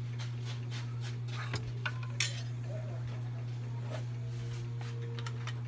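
Scattered light clicks and knocks of small objects being handled, the sharpest about two seconds in, over a steady low hum.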